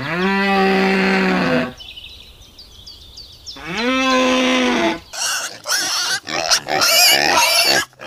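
Two long animal calls, each about a second and a half and holding one even pitch, with faint high chirps between them. From about five seconds in comes a rapid jumble of short, shrill, wavering squeals.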